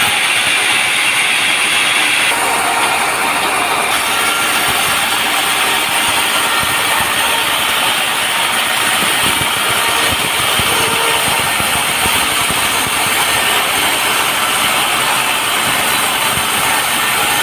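Sawmill running: a loud, steady mechanical noise of the engine-driven saw, with no pauses.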